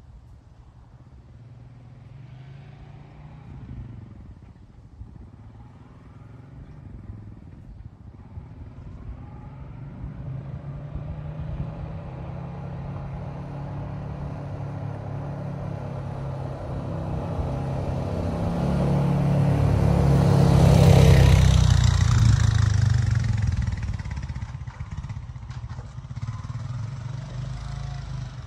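A Honda Rancher 420 ATV's single-cylinder engine running, growing slowly louder as it comes close. It is loudest about three-quarters of the way through, then eases back to a steady, lower running.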